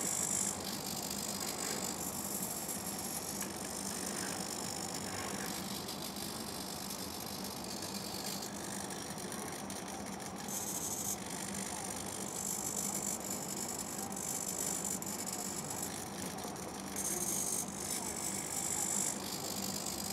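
Hobby micro servos of a 3D-printed robot arm whining as the arm moves through a pick-and-place routine, in stretches that start and stop abruptly as each joint moves and halts. A steady low hum runs beneath.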